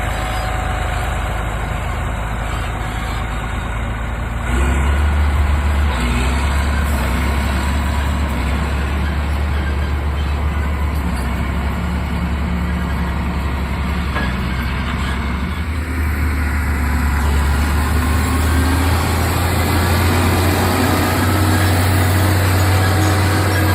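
Heavy diesel harvesting machinery running steadily in the field: a deep engine hum under a dense mechanical clatter. It steps up louder about four and a half seconds in, and again around sixteen seconds.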